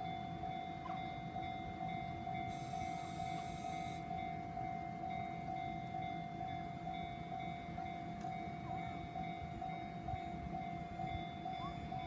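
Japanese railway level-crossing warning bell ringing its electronic tone over and over at an even pace while the crossing is closed, over a low rumble. A brief hiss sounds about three seconds in.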